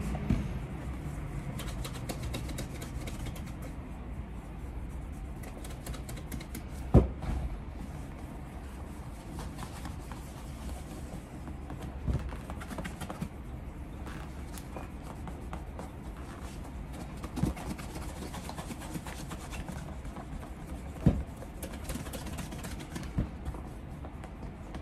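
Polishing cloth rubbing wax and water into a leather shoe for a mirror shine: a steady faint rubbing made of many quick small strokes, with a few knocks, the loudest about seven seconds in.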